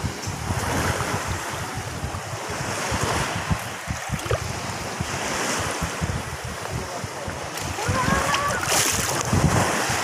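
Small waves washing in shallow sea water, with gusts of wind buffeting the microphone.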